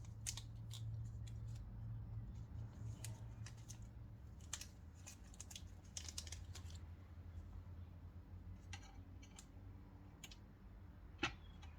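Irregular light metallic clicks and scrapes from handling small stainless steel screws and trying them in pre-drilled holes in a metal part. The clicks are thick in the first several seconds, then sparser, with one sharper click near the end, over a steady low hum.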